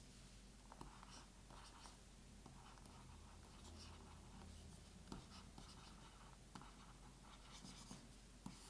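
Faint scratching of a stylus writing on the Boox Tab X's e-ink screen, in a series of short strokes with a few light taps.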